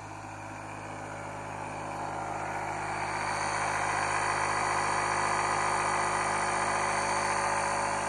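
A motor running at a steady pitch, a hum made of many even tones. It grows louder over the first few seconds, then holds steady until it cuts off at the end.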